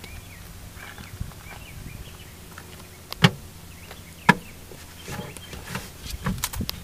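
Golf cart running with a steady low hum, with two sharp knocks about three and four seconds in and a few lighter clicks near the end.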